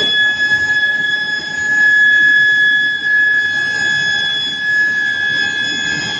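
Steel billet induction heating machine running, giving a steady high-pitched whine with fainter overtones above it, over a noisy haze.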